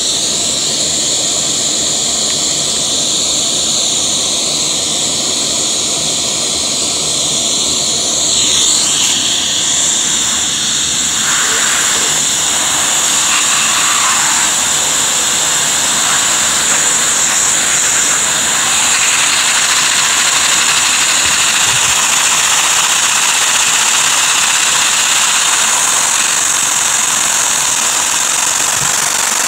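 Vacuum cleaner running with a steady, loud, high whine, used as the suction supply for a Lego butterfly-valve vacuum engine. About nine seconds in its pitch briefly dips, and from then on the sound turns rougher and fuller as the nozzle is held to the engine.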